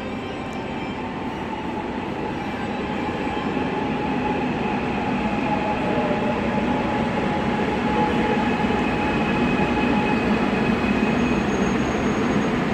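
Gwangju Metro subway train running, heard from inside the car: a continuous rumble with steady whining tones, growing steadily louder.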